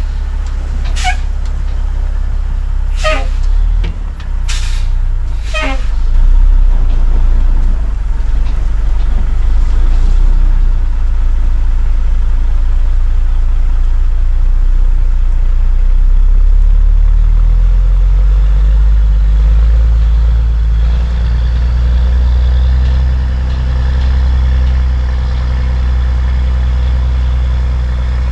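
Heavy diesel dump truck engine running hard, with four short, sharp high squeals in the first six seconds. The engine note rises and grows stronger over the last ten seconds or so.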